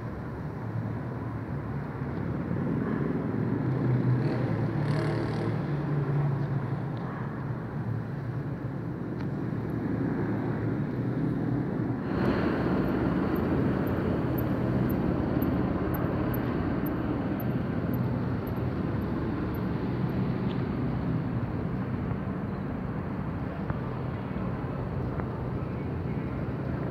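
Distant aircraft passing overhead: a steady low drone over city background noise, growing louder around four seconds in and again after about twelve seconds.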